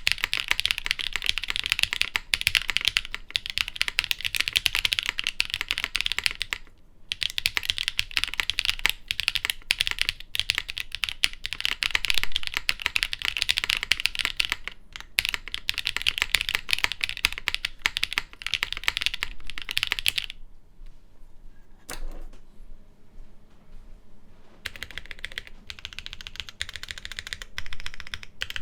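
Fast, steady typing on a plateless, unweighted aluminium WKL Martingale60 mechanical keyboard with lubed Leobog Kayking long-pole switches and GMK keycaps. The keystrokes stop about two-thirds of the way through, apart from one lone click, then the typing picks up again a few seconds later.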